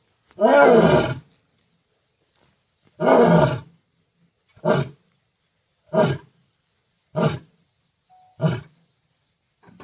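Male lion roaring: two long roars, then four shorter calls at about one every 1.3 s, each briefer than the last, as the roaring bout tails off.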